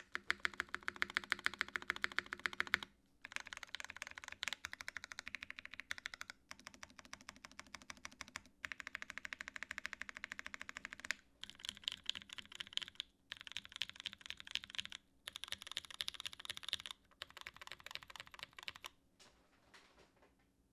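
Fast typing on a 959 Mini GT mechanical keyboard with Pewter switches in a top-mounted aluminum plate and GMK keycaps: rapid, dense keystroke clicks in runs of a few seconds with short pauses between them. The typing stops a second or two before the end.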